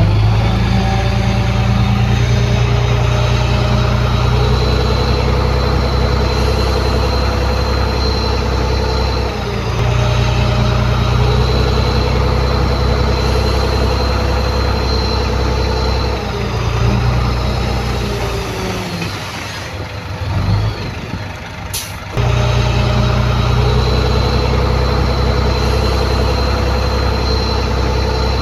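Heavy diesel engine of earthmoving equipment running steadily under load. It eases off and grows quieter for several seconds past the middle, then a sharp click comes about 22 seconds in and the engine is suddenly back at full level. A faint high whine runs over the engine in the louder stretches.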